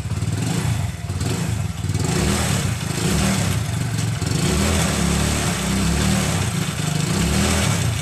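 Honda Pridor motorcycle's small single-cylinder engine idling steadily through its stock exhaust silencer, just after being kick-started.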